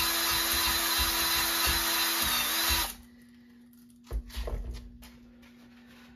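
Cordless drill spinning a small cylinder hone in the engine's bore, with a steady motor whine under the scraping of the stones, as the bore is honed to a crosshatch. The drill winds down and stops about three seconds in, followed by a couple of knocks as it is set down.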